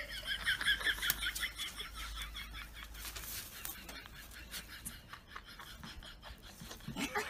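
A small dog whimpering in a quick run of high-pitched squeaks and breaths that fades out after a few seconds, with faint rustling.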